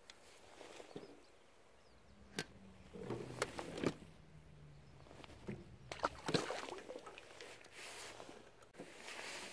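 A small fish being unhooked by hand at the waterside: scattered sharp clicks and rustles of line and tackle handling, loudest just before the middle and again a little past it.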